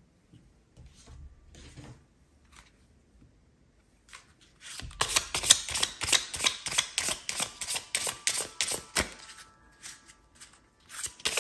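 A deck of tarot cards being shuffled by hand: a few faint rustles, then from about halfway in a dense run of rapid card clicks and slaps lasting about six seconds, stopping shortly before the end.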